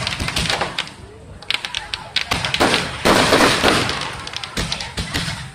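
Aerial fireworks bursting in the sky with rapid crackling and popping. A dense shower of crackling comes about three seconds in and dies away over the next second or so.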